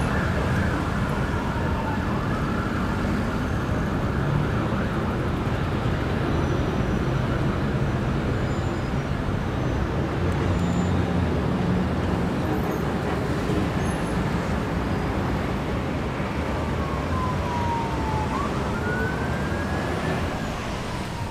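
Steady heavy road traffic with an emergency vehicle's siren wailing over it, its pitch sweeping down and then back up near the end.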